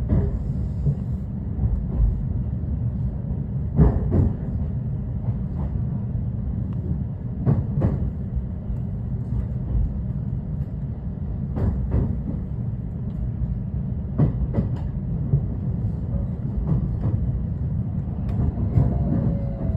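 Inside a 223 series electric train: a steady low rumble, with a few sharp knocks and clicks scattered through it. Near the end a low steady tone and a few falling tones come in.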